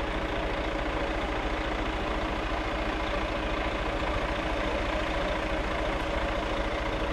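Diesel coach engine idling steadily.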